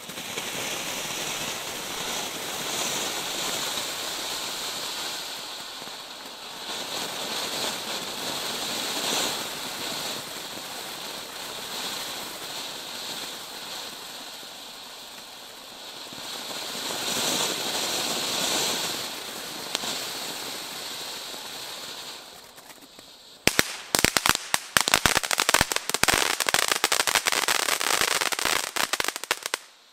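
Firework fountain spraying sparks with a steady hiss that swells and fades in waves, then, about 23 seconds in, breaks into dense, rapid crackling that is the loudest part and stops just before the end.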